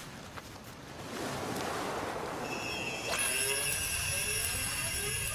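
Documentary underscore: a swelling hiss, then about three seconds in, layered high shimmering tones that are held steady, with a few rising glides underneath.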